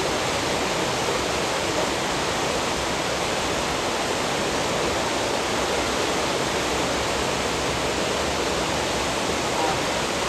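Fast-flowing water rushing steadily as it churns over a jam of floating plastic bottles and balls.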